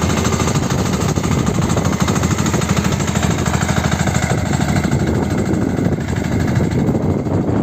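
Engine of a sanedo, a motorcycle-based farm cultivator, running steadily with rapid, even exhaust pulses.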